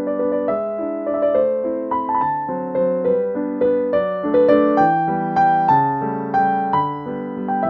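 Background piano music, a steady run of gentle notes and chords.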